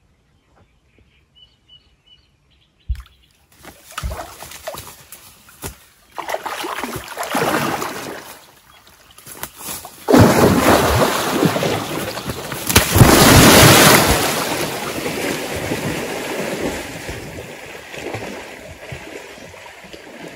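A man scrambling down a riverbank and going into the water after a hooked catfish. A few knocks come about three seconds in, then splashing that builds from about six seconds and is heaviest from about ten to fourteen seconds as he is pulled in, before settling into sloshing water.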